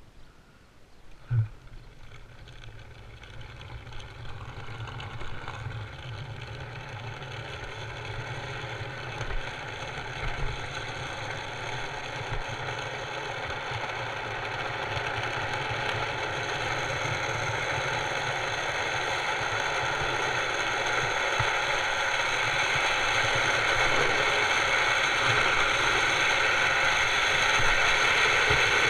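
Steel ball-bearing wheels of a wooden home-made cart rolling on asphalt: a steady grinding rattle that grows louder as the cart gathers speed downhill. A sharp knock about a second and a half in.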